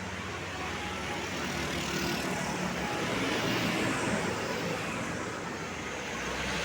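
Road traffic with a heavy vehicle, such as a tour bus, going by: a steady rush of engine and tyre noise that is slightly louder in the middle.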